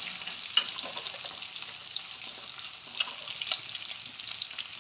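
Whole spices, bay leaves and green and red chillies sizzling in hot oil in a kadai during the tempering (tadka), with a steady crackling hiss. A metal spatula stirs them, scraping and clicking against the pan a few times.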